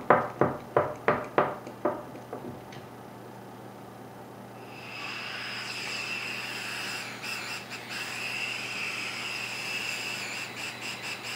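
A quick run of sharp metallic clicks, then compressed air hissing steadily out of a Tippmann 98 paintball gun valve under pressure from about five seconds in: the rebuilt valve is leaking.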